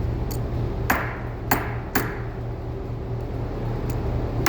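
Hammer blows peening over a metal rivet in a leather belt, each strike ringing briefly: three sharp strikes about half a second apart, then another near the end.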